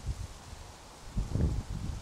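Wind buffeting the microphone in uneven gusts, a low rumble that eases off about half a second in and picks up again from about a second in.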